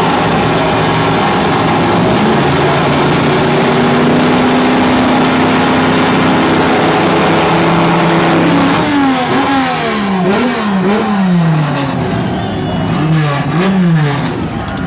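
Drag-racing car engines at the start line held at steady high revs. From about two-thirds of the way in they are revved repeatedly, the pitch jumping up and falling back again and again.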